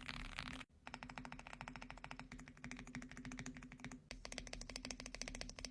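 Fast typing on an Ala F75 gasket-mounted mechanical keyboard with Reaper switches: a rapid, even run of soft keystrokes, the 'creamy' sound of its sound test, with a brief break about a second in.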